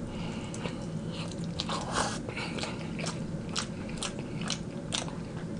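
A person chewing hot wings, with short crunching clicks about twice a second.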